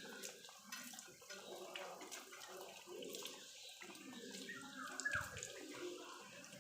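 Water splashing and running over a dog as it is washed of mud, faint and irregular with small splashes and drips. About five seconds in there is a brief high falling squeak.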